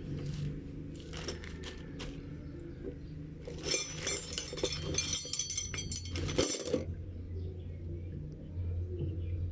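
Small metal objects clinking and rattling, thickest in a cluster through the middle, over a low steady hum that grows louder near the end.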